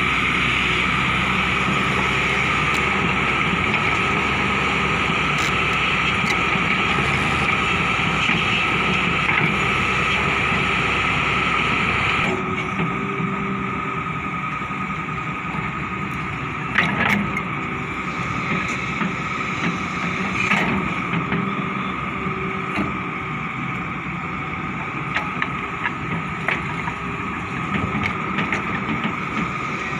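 Hyundai excavator's diesel engine running with a steady whine, working hard for about the first twelve seconds and then dropping to a lower level. Scattered knocks and clunks follow in the second half.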